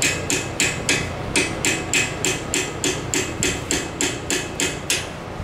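Rapid, evenly paced hammer blows, about three or four a second, stopping about five seconds in.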